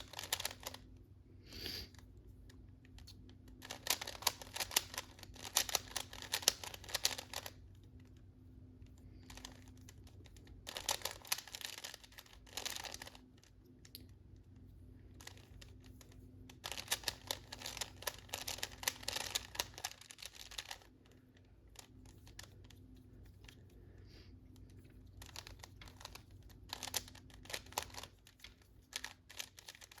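Rubik's cube being turned by hand: rapid plastic clicking of the layers in bursts of a few seconds, with pauses between them.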